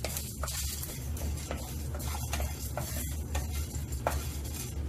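Wooden spatula stirring and scraping whole spices and a dried red chilli around a dry nonstick pan, with a light sizzle as they dry-roast over a medium flame.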